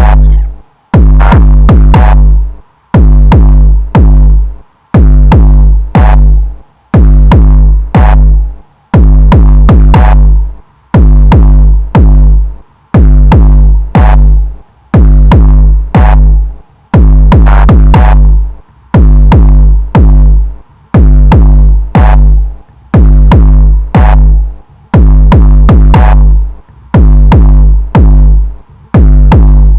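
Electronic background music with a drum-machine beat and synthesizer. Deep bass notes and chords cut off sharply in a steady rhythm, about once a second.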